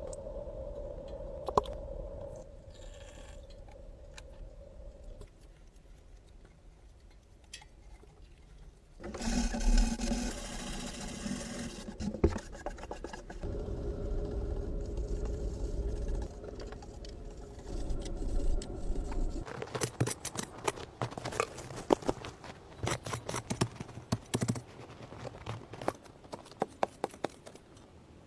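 Kitchen handling sounds while cooking: scraping and clattering, a loud noisy rush partway through, and a run of sharp clicks and knocks in the later part.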